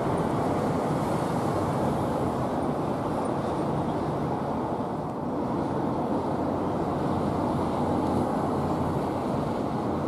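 Steady low rumbling outdoor background noise, like distant traffic, with no gull calls.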